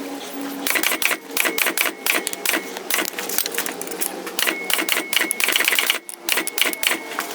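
Rapid, irregular clicking and light tapping, typical of metal being worked by hand at the bench, with a faint steady ring in places.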